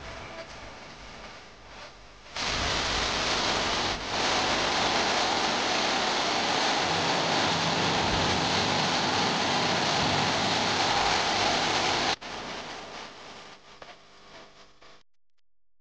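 Small artificial rock waterfall: thin streams of water pouring and splashing over stone ledges, a steady rushing hiss. It starts suddenly a couple of seconds in, gets louder about four seconds in, and cuts off abruptly about twelve seconds in, leaving a fainter wash that fades away.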